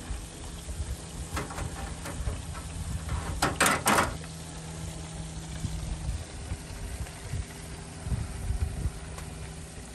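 A knife cutting through a crisp fried fish patty and scraping across a metal wire cooling rack, with two sharp, loud crunching scrapes about three and a half seconds in. A steady, engine-like low hum runs underneath, dropping out briefly around the middle.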